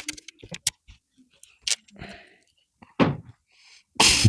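Scattered light clicks and clacks of plastic LEGO pieces being handled and pressed together, with a louder sudden noise about three seconds in and another just before the end.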